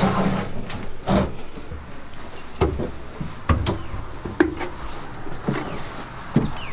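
Bare feet and hands knocking and thudding on wooden steps and cabinetry while climbing up a boat's companionway ladder: about seven scattered, irregular knocks with a low background between them.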